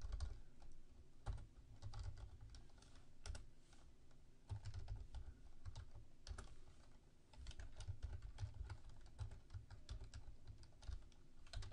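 Typing on a computer keyboard: irregular keystrokes in uneven runs, faint clicks over dull low thuds.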